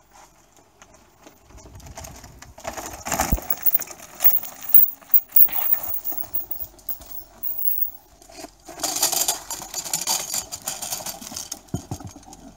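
Downhill mountain bike clattering down a rocky slab: irregular rattles and knocks of chain, frame and tyres on rock, with a longer scraping rush about three-quarters of the way through.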